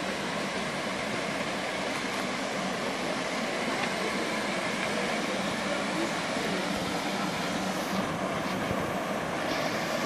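Steady rushing of a small forest stream spilling down a rocky cascade.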